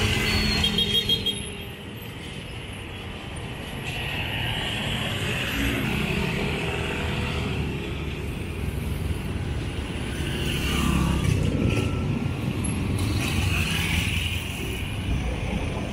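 Street traffic: cars and trucks passing in a steady wash of engine and tyre noise that swells and eases every few seconds.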